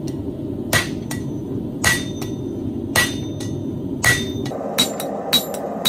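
Hand hammer striking hot steel on an anvil: four ringing blows about a second apart, then quicker, lighter blows near the end, over a steady low rumble.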